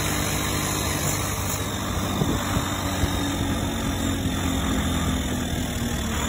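Engine running steadily at idle, with a low, even throb and no change in speed.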